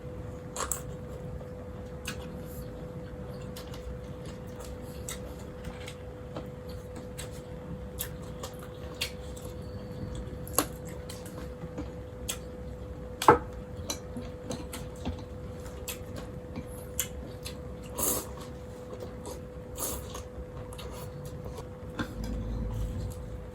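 Eating utensils clinking against a bowl of noodle soup in scattered light clicks, one sharper clink about halfway through, over a steady hum.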